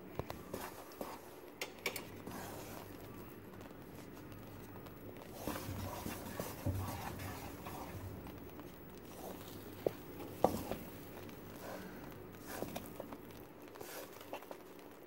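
Spatula stirring and pressing thick coconut mithai paste as it fries in ghee in a metal pan: irregular soft scrapes and taps against the pan, with two sharper knocks about ten seconds in, over a faint steady hum.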